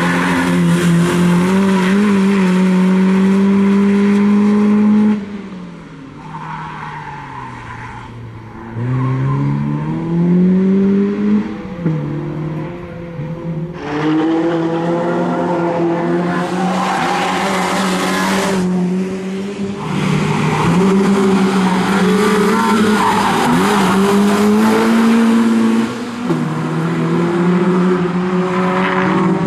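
BMW E30 318is four-cylinder engine driven hard at high revs. About five seconds in it lifts off and the revs fall away, then it climbs again through repeated rises and dips as it shifts gears, with tyres squealing through the corners.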